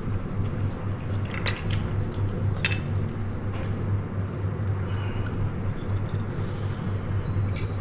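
A few light, sharp clicks of a bamboo skewer and snail shells against a small ceramic bowl while steamed snails are picked out and dipped in sauce, over a steady low hum.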